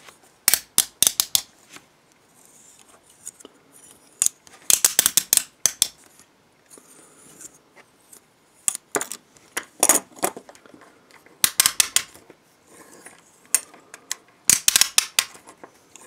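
Antique French aluminium handcuff's toothed bow being swung through the lock case, its teeth ratcheting past the lock pawl in about six quick runs of clicks with faint scraping between them. It sounds very rough and stiff.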